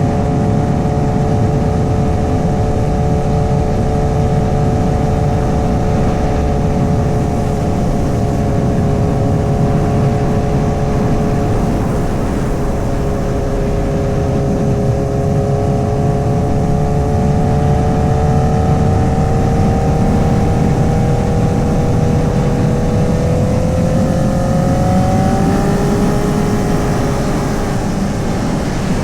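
2008 Honda CBR1000RR's 999cc inline-four running at steady cruising revs, its pitch creeping slowly upward and then climbing more quickly about 24 seconds in, over a steady low rush of wind and road noise.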